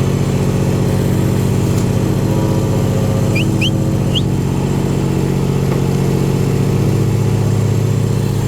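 Engine of asphalt paving equipment running steadily at a constant speed, with a few short, high rising chirps around the middle.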